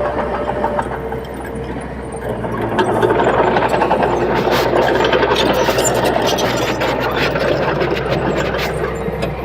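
Komatsu D21P bulldozer running and working, its diesel engine steady underneath with steel tracks clanking and rattling; the engine gets louder about three seconds in.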